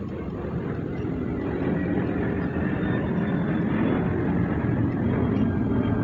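A loud vehicle-like rumble that grows louder over the first two seconds and then holds steady.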